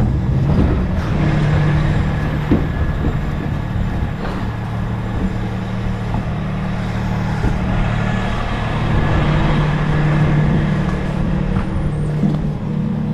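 Garbage truck engine running steadily, with general cab and road noise.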